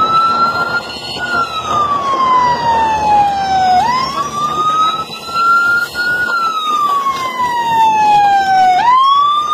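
Police siren wailing in a slow rise and fall, each cycle about five seconds long: a quick climb, a slow peak, then a long slide down, over a steady background noise.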